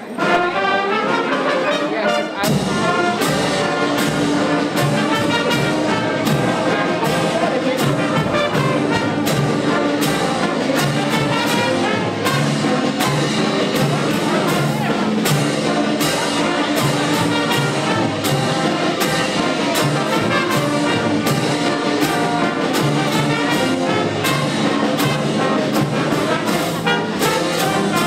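Live high school concert band, led by trumpets and trombones with saxophones, playing a piece with a steady beat. Low bass notes come in about two seconds in.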